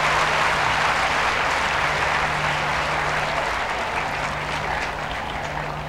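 Crowd applauding, the clapping slowly dying away.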